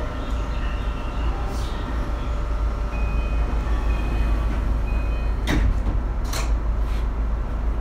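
Tokyu 2020 series electric train standing at a station, its car giving a steady low rumble. A door chime beeps three times about a second apart, then three sharp hissing clatters follow as the passenger doors open.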